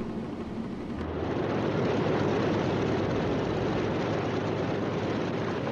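Propeller aircraft engines running, a steady dense rumble that swells about a second in and holds.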